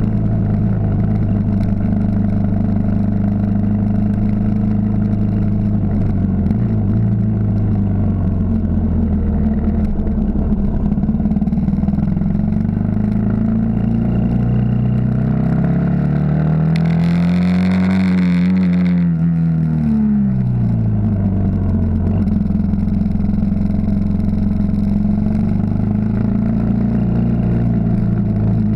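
Yamaha XT 600 single-cylinder four-stroke engine running under way, heard from the bike itself with wind rush. About halfway through, the engine speed climbs for several seconds, then drops back to its earlier steady pace, with a brief hiss at the peak.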